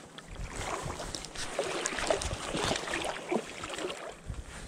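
Irregular splashing and sloshing of water around a freshly hooked trout being played, with short scattered splashes and some low wind rumble on the microphone.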